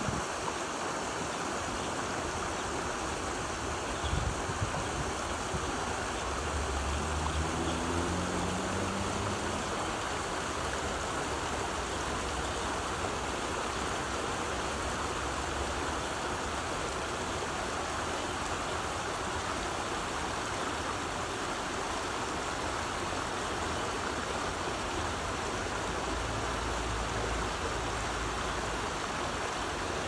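Shallow stream gurgling over stones and a small weir, a steady rush of water. There is a brief low thump about four seconds in.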